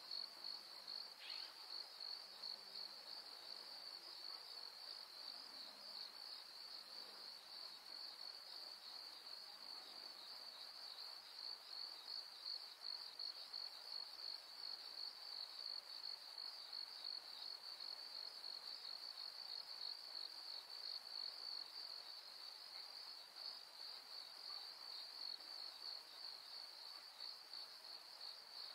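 Chorus of insects in the pasture: a continuous high, even trill with a fine rapid pulse, holding steady throughout.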